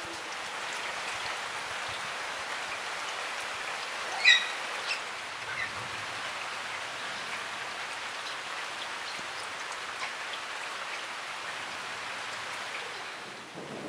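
Light rain falling steadily, an even hiss of drops, with one short high chirp about four seconds in.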